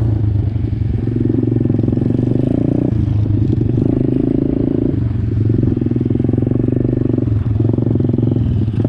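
SSR 125 pit bike's single-cylinder four-stroke engine with an aftermarket exhaust, ridden at low speed and heard from the rider's seat. The engine note holds steady in stretches and dips briefly about three, five and seven seconds in.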